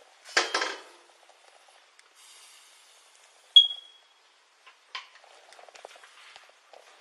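Clothing and handling rustle on a body-worn camera, with a sharp metallic ping that rings briefly about three and a half seconds in and a few light clicks and knocks after it.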